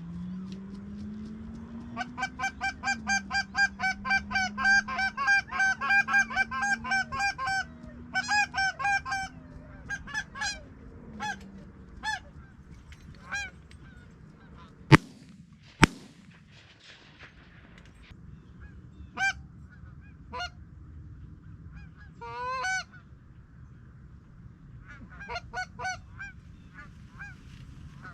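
A flock of geese honking, many calls overlapping at first, then thinning to scattered honks. Just past halfway, two shotgun shots about a second apart ring out, and a few honks carry on afterwards.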